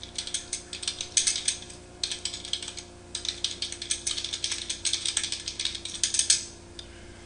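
Fast typing on a computer keyboard: quick runs of key clicks with brief pauses about two and three seconds in, stopping shortly before the end.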